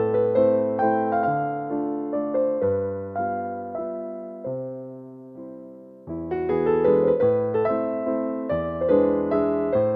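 Soft piano background music: notes struck and left to fade, the playing thinning out and dying down toward the middle, then picking up again about six seconds in.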